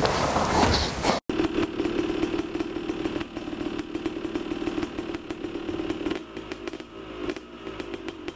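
A motorcycle engine idling steadily with a fine rattling clatter. It follows about a second of handling noise that cuts off abruptly.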